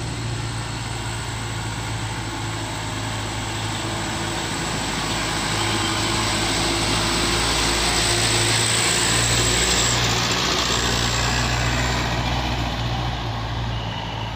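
Medium tour bus's diesel engine running under load as it climbs a steep hill. It grows louder as the bus passes close about eight to ten seconds in, then fades as it pulls away.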